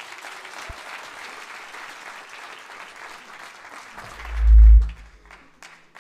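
Audience applauding, dying away about five seconds in. About four seconds in, a deep low thump, the loudest sound, cuts through the clapping.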